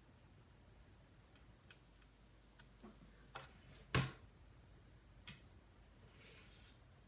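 Scattered light clicks and taps of small tools and parts being handled on a workbench, with one louder knock about four seconds in. A brief soft hiss near the end.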